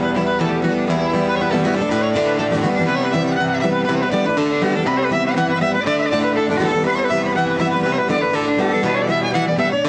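String band playing an instrumental tune live: fiddle leading over strummed acoustic guitar, mandolin and electric bass.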